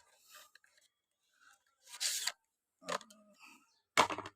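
Paper and plastic packaging rustling and scraping in short bursts as the contents of a small microphone box are handled, the loudest about two seconds in, with a brief vocal sound near the end.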